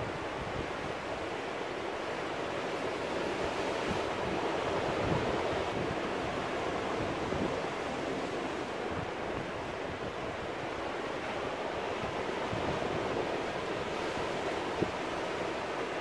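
Sea surf breaking and washing among rocks: a steady rush of water that swells a little a few seconds in.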